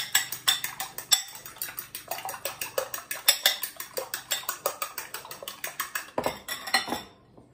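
Two eggs being beaten by hand in a small ceramic bowl: a utensil clinks against the bowl in a fast, even rhythm of several strokes a second, stopping about seven seconds in.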